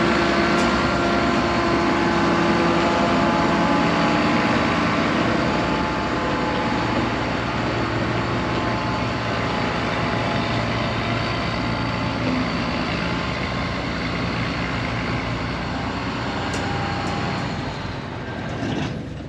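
Combine harvester's diesel engine running steadily, fading near the end.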